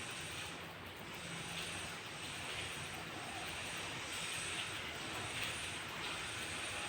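Steady rain, an even hiss.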